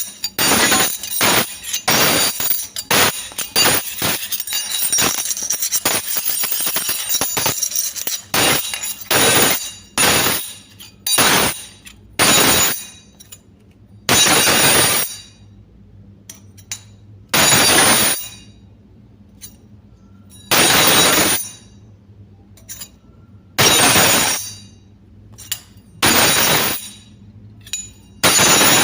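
Metal spoons clinking against each other and against metal. It starts as a rapid jangling rattle, then turns to single sharp clinks about once a second. After about halfway, longer metallic sounds about a second long come every three seconds or so.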